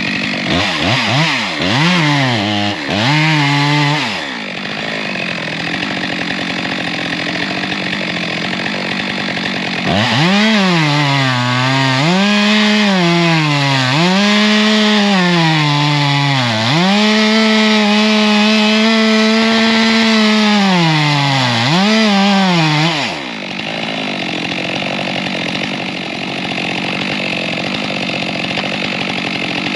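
Chainsaw cutting into a dry dead tree trunk, its engine pitch dipping and recovering several times as the chain bogs under load in the cut. It revs up and down in the first few seconds, and drops back to a lower, steady idle about four seconds in and again for the last several seconds.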